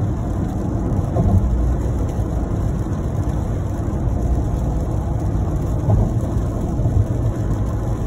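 Steady low road rumble inside a moving car's cabin at highway speed on a wet road, tyres and engine together.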